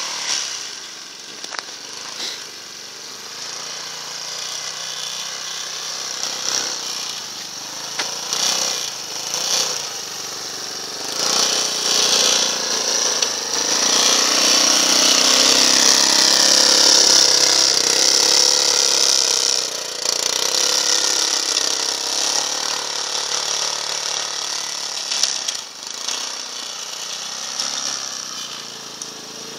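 Small engine of a homemade all-wheel-drive Leshy 2x2M motorcycle running as it is ridden through deep snow, buzzing steadily and rising and falling with the throttle. It is loudest for several seconds in the middle, where the machine ploughs through a deep drift.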